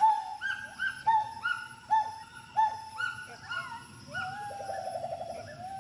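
Male gibbon calling: a run of loud whooping hoots, about two a second, each sweeping sharply up and down in pitch. Near the end comes a longer note that breaks into a fast quavering trill.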